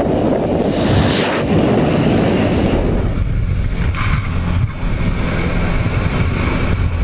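Wind rushing and buffeting the microphone, then after about three seconds a cut to the steady drone of a light aircraft's engine heard from inside the cabin, with air rushing past the open jump door.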